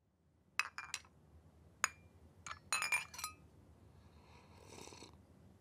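A handful of sharp clinks, each with a brief ringing tone, in quick clusters over the first three and a half seconds, then a soft hissing swell about four to five seconds in, over a low steady hum.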